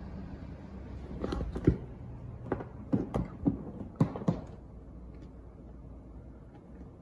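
A handful of light knocks and clicks, bunched between about one and four and a half seconds in, over a low steady rumble.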